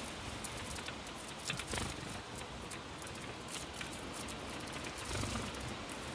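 Irregular light clicks and taps of house sparrows' beaks and feet on a plastic wheelie bin lid as they peck at suet pellets, over a steady hiss.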